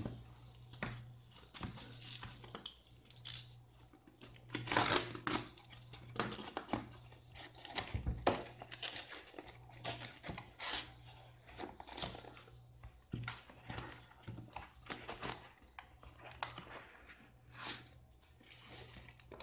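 A taped cardboard parcel being torn open by hand: packing tape and cardboard ripping and crinkling in irregular bursts, with plastic foam wrap rustling.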